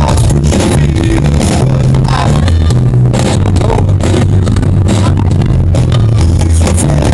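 A live band plays loud electronic dance-pop, heard from the crowd. A strong bassline that moves between notes is the loudest part.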